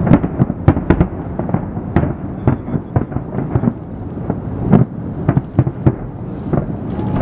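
Aerial firework shells bursting in rapid succession, a dense series of sharp bangs over a continuous rolling rumble.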